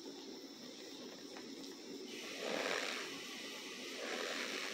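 Cornstarch being squeezed and crushed by hand, a soft powdery crunching with two louder swells, about two seconds in and near the end.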